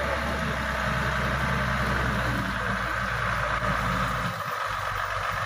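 Loaded truck's diesel engine running steadily at low revs as the truck creeps out along a muddy track after being stuck; its deepest hum falls away a little over four seconds in.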